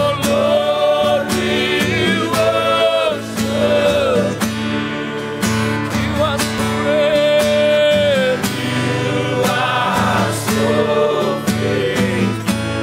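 A group of men singing a gospel song together, accompanied by a strummed acoustic guitar.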